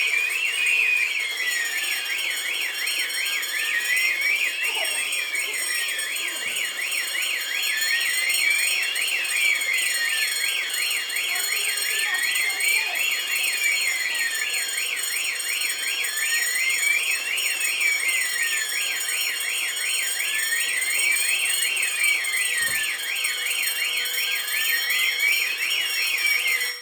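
Several fire alarm sounders going off together: a slow siren sweeping up and down about every four seconds over a fast warbling tone and a few steady high-pitched tones, all stopping at once at the end.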